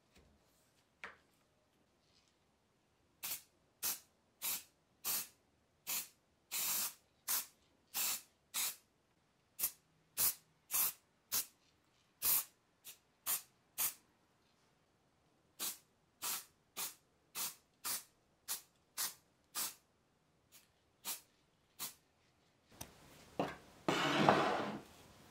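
Aerosol spray-paint can sprayed in short hissing bursts, about two a second in three runs with brief pauses, as the scabbard is painted black. Near the end comes a louder, rough noise lasting about two seconds.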